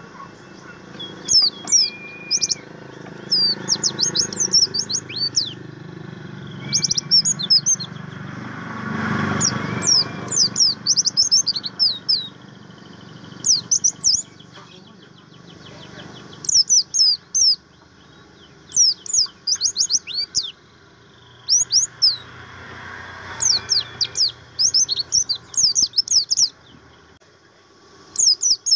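White-eye (pleci, buxtomi type) singing: repeated bursts of fast, high twittering chirps and trills, a second or two long, with short pauses between phrases. A low rushing background noise swells briefly twice underneath.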